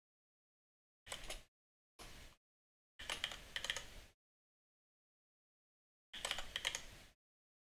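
Computer keyboard typing in four short bursts of key clicks, the third and fourth longest, with dead silence between them.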